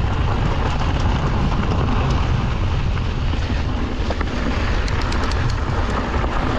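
Wind rushing over the camera microphone and the tyres of a Yeti SB 150 mountain bike rolling over dirt trail: a steady, strong rumble. A few light clicks and rattles come about five seconds in.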